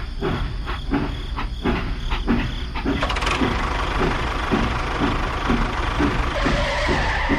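Small engine running steadily, with a regular chugging beat somewhat under two times a second.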